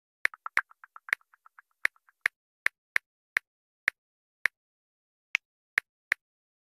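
Smartphone on-screen keyboard key-press clicks as a message is typed: about fourteen sharp taps at an uneven pace, with fainter ticks in between during the first two seconds.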